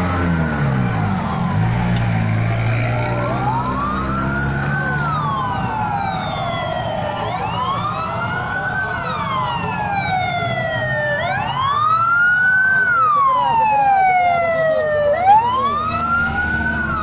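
Sirens of several fire-fighting vehicles wailing together, each slowly rising and falling about once every four seconds and overlapping out of step. A single sharp click sounds about two seconds before the end.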